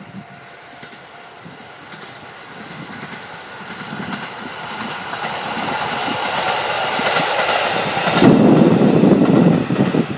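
Diesel railcar on the Kyudai Main Line approaching, its engine and wheels growing steadily louder. From about eight seconds in it passes close by, with wheels clacking over the rail joints.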